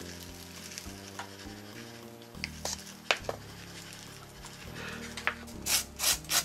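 Fine rock ballast poured from a plastic box onto model railroad track, the grains landing with a light rustle and a few sharp ticks. Near the end, fingertips rub the loose ballast in quick scratchy strokes, about three a second. Soft background music plays underneath.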